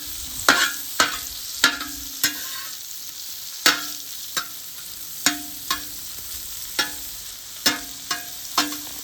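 Food sizzling in a metal pan while a metal utensil stirs it, knocking and scraping against the pan about a dozen times at an uneven pace, each knock ringing briefly.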